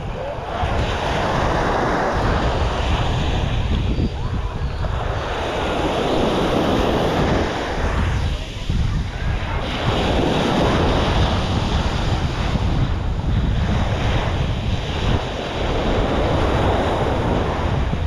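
Small waves breaking and washing up on a sandy shore, the surf swelling and fading every few seconds, with wind buffeting the microphone.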